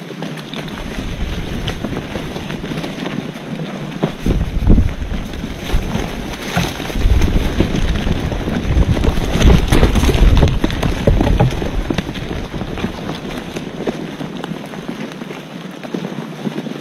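Wind buffeting the microphone, with a steady rushing hiss and heavy low gusts through the middle.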